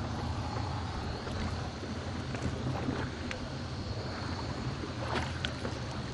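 Boat engine running with a steady low rumble, under wind and water noise.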